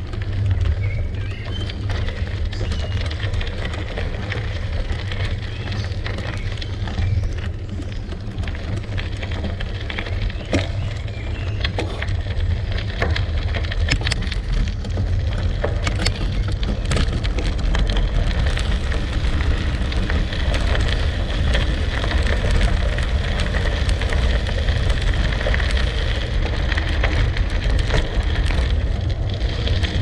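Gravel bike tyres rolling over gravel: a steady crackle of stones under the tyres over a low rumble, with sharper clicks and pings from about ten to seventeen seconds in.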